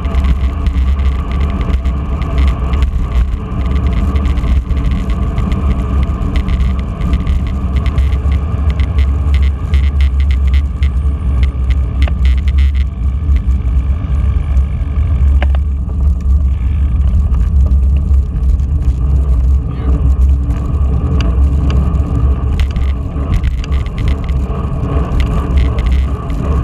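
Wind rushing over a bicycle-mounted action camera's microphone at riding speed, with steady road rumble and rattle from the bike. The rush eases for a few seconds about halfway through.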